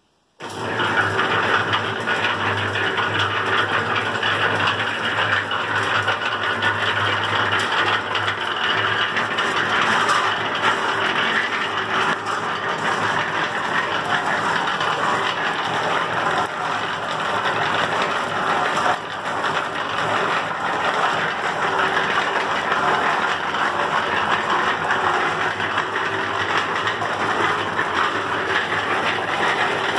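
Antique electric cement mixer switching on about half a second in and running steadily: the electric motor hums under a loud, steady rattle from the belt drive and drum gearing. The long-idle machine still runs.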